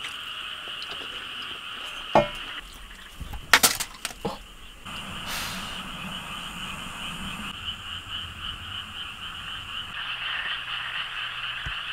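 Dense, steady chorus of frogs calling without a break, with a few sharp clinks about two seconds in and again around three and a half to four seconds in.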